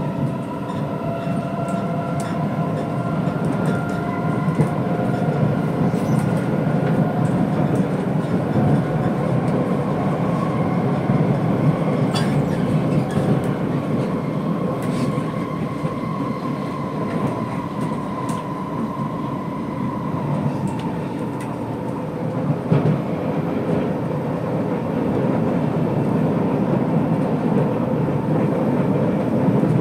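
Interior sound of a C751B metro train running under power: the whine of its Fuji Electric IGBT-VVVF traction inverter and motors over a steady rumble of wheels on track. Several whining tones rise a little in the first few seconds. Later one tone holds, sinks slightly and fades about twenty seconds in, with a few faint clicks from the track.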